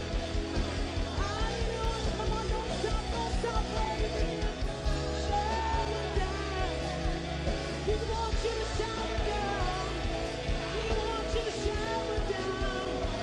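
Live worship band with a woman singing lead into a microphone: a sung melody over a steady beat, with the bass changing chords about every three to four seconds.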